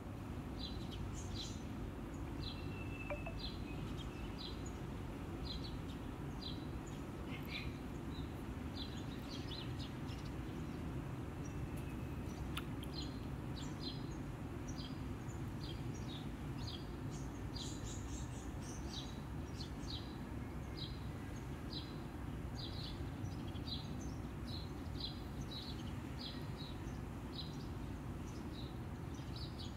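A small bird chirping over and over in short high notes, about once or twice a second, over a steady low outdoor rumble.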